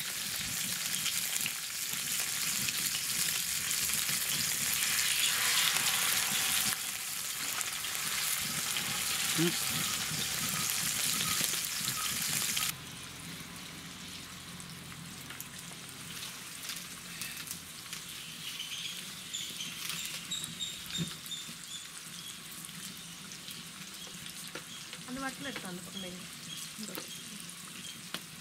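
Indian mackerel shallow-frying in hot oil in an iron pan: a steady, dense sizzle that suddenly becomes quieter about halfway through.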